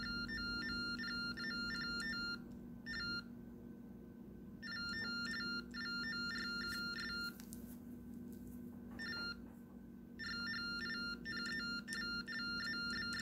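Recorded TTY (Baudot) data tones played back through a cell phone's speaker into a TTY's acoustic coupler: several bursts of rapid warbling between two high tones, with short pauses between them. The TTY decodes them into typed text, which shows that the machine works.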